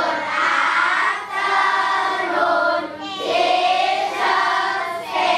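A class of young children singing together in unison, in drawn-out phrases of one to two seconds with short breaks between them.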